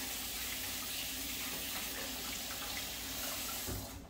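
Water running steadily from a kitchen tap into a sink, shut off near the end.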